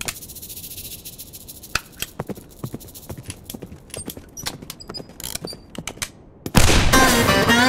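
Video slot game sound effects: a run of sharp, irregular clicks and knocks as the reels spin and land. About six and a half seconds in, a sudden loud musical sting with notes sliding down in pitch.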